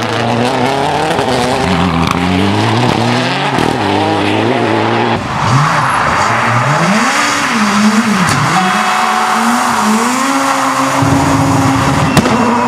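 Rally car engines revving hard, the pitch climbing and dropping through gear changes and lifts for the corner. First a Subaru Impreza rally car, then, after a sudden change about five seconds in, a Škoda Fabia rally car whose engine holds a steadier high note near the end.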